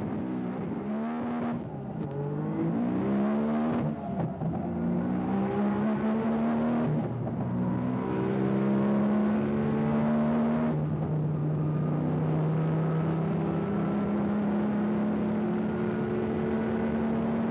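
HKS-tuned Nissan Skyline GT-R's twin-turbo RB26DETT straight-six at full throttle, heard from inside the cabin. Its pitch climbs through each gear, with upshifts about 2, 4, 7 and 11 seconds in, then rises slowly in top gear.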